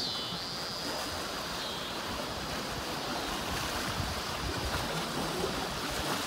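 Small lake waves washing against a rocky shoreline, a steady wash with wind gusting on the microphone.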